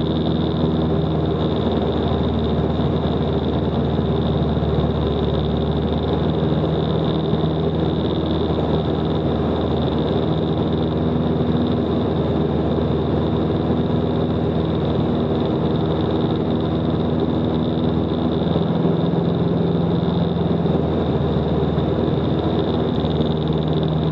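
Single piston engine and propeller of a Van's RV light aircraft running steadily at cruise power in formation flight, a constant drone heard from inside the cockpit.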